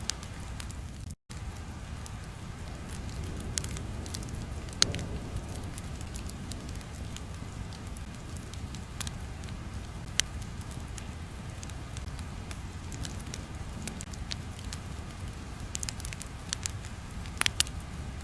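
Crackling ambient sound: a steady low rumble with scattered sharp crackles and pops, cutting out completely for an instant about a second in.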